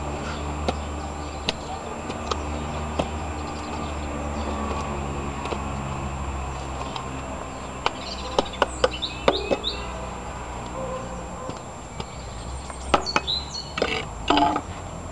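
Sharp, scattered knocks of digging in stony garden soil, coming in two clusters, about eight seconds in and again near the end. Birds chirp briefly at the same times, over a steady low hum.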